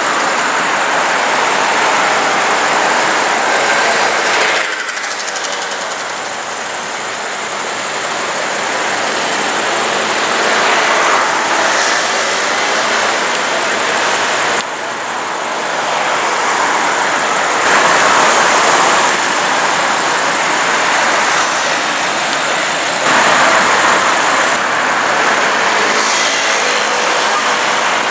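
Audi R8 Spyder's V10 engine and exhaust accelerating flat out and revving among city traffic, heard under a dense, loud rush of street noise. The sound shifts abruptly several times.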